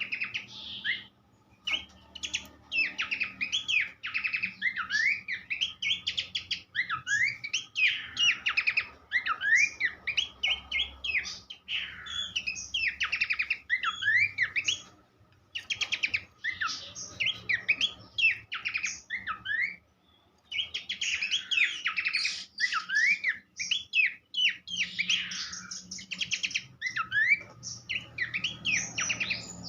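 Pelanduk semak (Horsfield's babbler) singing a rapid, continuous chatter of short, sharply rising and falling notes. The song breaks off briefly about a second in, near the middle and about two-thirds through.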